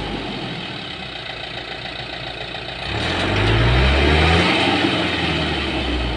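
Diesel engine of a tipper truck stuck in mud, running low and then revving up about three seconds in, its pitch rising and holding before easing off near the end, as it strains to drive the truck out of the mud.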